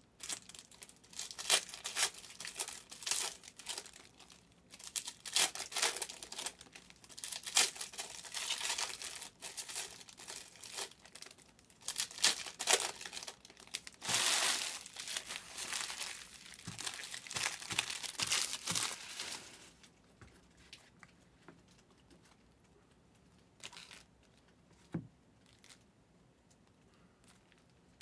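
Plastic wrappers of Donruss Optic basketball card packs being torn open and crumpled: dense crinkling and tearing that stops about two-thirds of the way through, leaving only a couple of soft knocks.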